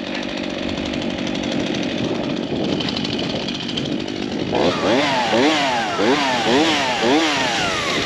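STIHL MS251 Wood Boss two-stroke chainsaw idling steadily, then from about halfway through revving up and down over and over in quick succession.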